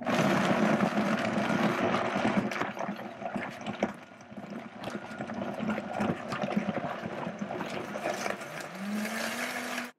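High-powered countertop blender running at speed, churning a thick smoothie of frozen bananas, berries and juice. It starts suddenly, its motor pitch rises near the end, and then it cuts off abruptly.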